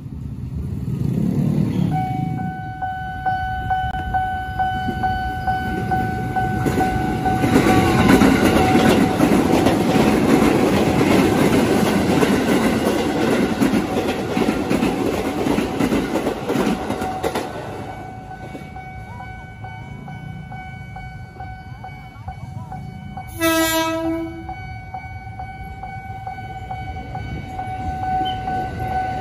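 A KRL Commuter Line ex-JR 205 series electric train running close past, its wheels clattering loudly for about ten seconds. A second 205 series train sounds one short, loud horn blast about two-thirds of the way through. A steady warning tone from the level crossing carries on under both.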